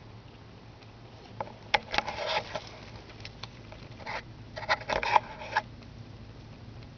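Two short bouts of rustling and scraping with sharp clicks, the first about one and a half seconds in and the second about four seconds in.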